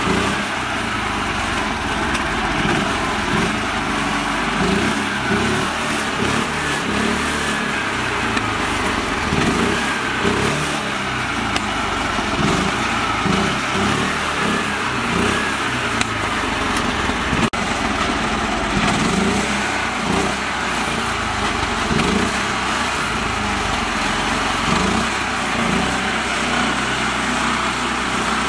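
Small engine of a mini tractor running steadily as it drives through mud, its note rising and falling a little.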